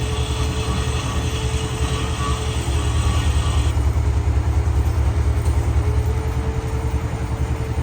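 Heavy workshop machinery running steadily: a loud low throb with a fast, even pulse and a faint steady hum above it; the higher hiss drops away abruptly about four seconds in.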